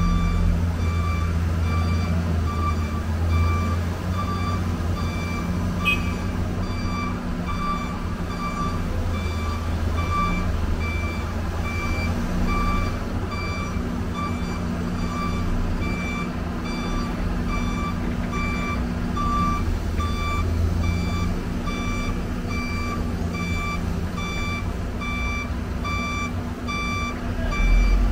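Back-up alarm on heavy equipment beeping at an even pace, one pitch, over the steady running of a diesel engine.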